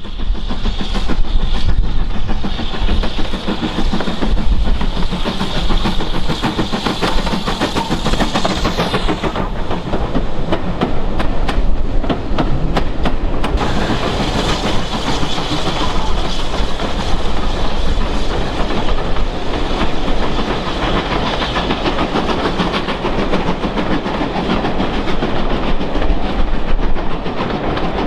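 A steam train running along the line: a steady rush of the moving train with steam hiss, and the wheels clattering over the rail joints in a quick run of clacks about ten seconds in.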